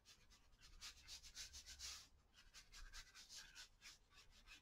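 Faint soft brushing of a fine watercolour brush dabbed and stroked on paper, a quick series of short strokes.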